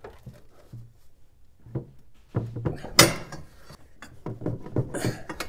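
A few metal clanks and knocks from a wrench and cheater bar being worked against a seized T60 Torx bolt on the oil filter adapter bracket of a Jeep 4.0 inline-six, the sharpest about three seconds in. The bolt is stuck fast, baked in place.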